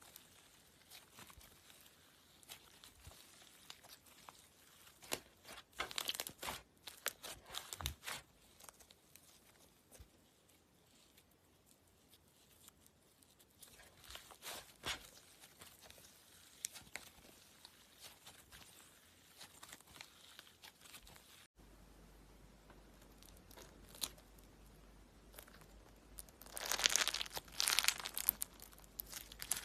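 Slime being squeezed, poked and stretched by hand, making crackling, popping and crunching sounds in scattered clusters, densest and loudest near the end.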